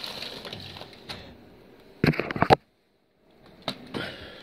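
Steel drawers of a US Pro tool chest sliding on their runners. A drawer full of loose nuts and bolts slides shut, ending in a burst of rattling clicks about two seconds in. After a short dead silence, the next drawer slides open.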